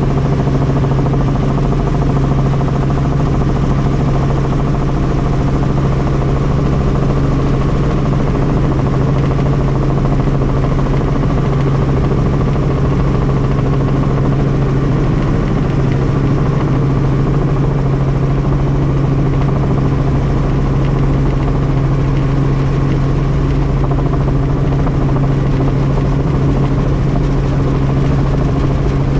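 Helicopter's engine and rotor running steadily, a loud unchanging drone with a strong low hum.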